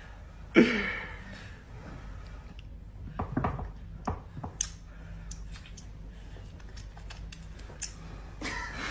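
Fabric rustling and scattered small clicks as hands grab and tug at a T-shirt, with a couple of brief vocal sounds, about half a second in and again after about three seconds.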